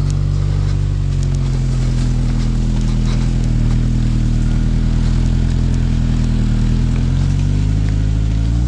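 Suzuki Vitara (Escudo) 4x4 engine running steadily under load while driving off-road, its pitch shifting a little and rising near the end, with a few light knocks.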